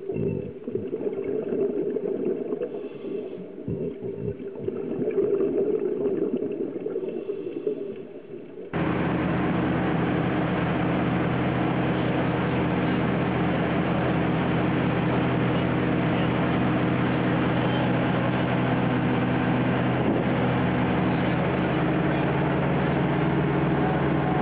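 Muffled underwater sound of scuba diving, a low, uneven bubbling with short lulls. About nine seconds in it cuts abruptly to a boat's engine running steadily at speed under the rush of water and wind.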